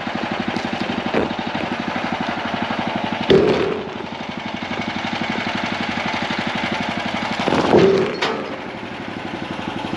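Portable band sawmill's small gas engine idling with a steady, rapid putter. Twice, about three and eight seconds in, a louder short scrape rises over it.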